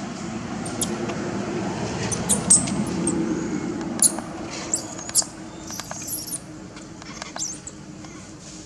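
Newborn macaque infant giving a series of short, very high-pitched squeaks, one about halfway through held a little longer, over a steady low background rumble.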